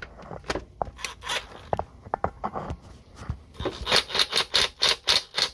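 Hand ratchet being worked to tighten bolts: scattered clicks and scrapes, then a run of quick ratcheting strokes, about four a second, in the second half.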